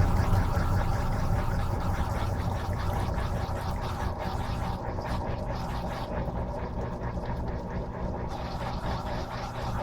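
Electrolux LM13Q top-load washing machine running: a steady low motor hum with a few steady tones, getting slowly quieter.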